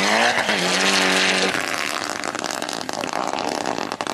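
Rally car engine at full throttle on a gravel stage. It revs up, drops with a gear change about half a second in, holds, then cuts off about a second and a half in. A fading crackling rush follows as the car pulls away.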